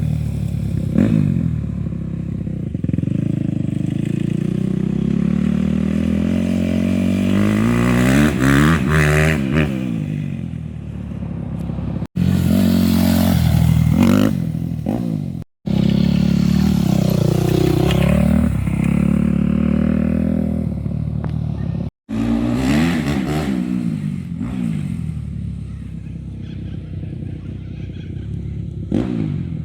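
Yamaha YZ250F four-stroke single-cylinder motocross bike being ridden hard, its engine revving up and down through the gears and passing close by. It comes in several stretches broken by abrupt cuts.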